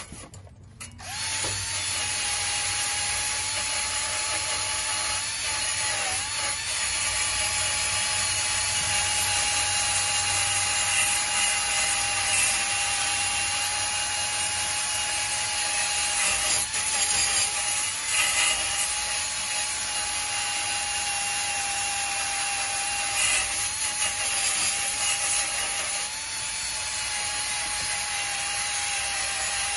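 Cordless drill spinning a wire wheel brush against a rusty exhaust pipe, scrubbing off rust and corrosion to expose any leak hole: a steady motor whine over a scraping hiss. It drops out briefly at the start and picks up again about a second in.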